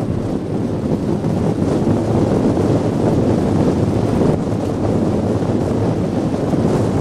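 Steady rush of wind buffeting the microphone, mixed with the hiss of iceboat runners sliding over the ice, aboard an iceboat sailing at speed.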